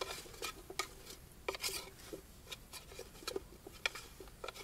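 Camping cookware being handled: a frying pan on a small gas-canister stove and a metal pot, making irregular light clinks and clatter.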